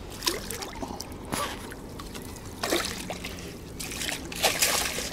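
Water splashing and trickling as a carp is let out of a landing net and the wet net is handled at the water's edge: several short splashes, busiest near the end.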